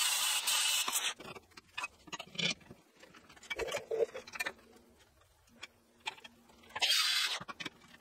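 Workshop work noise: a loud hiss for about the first second, then scattered clicks and knocks, and another short hiss near the end.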